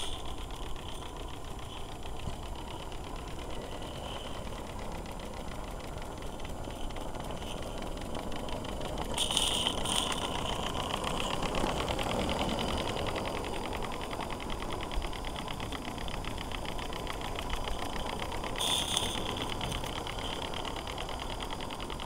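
Live-steam SM32 geared Shay locomotive running: a fast, steady patter of exhaust beats and mechanical clatter, with a brief higher hiss three times, about nine seconds apart.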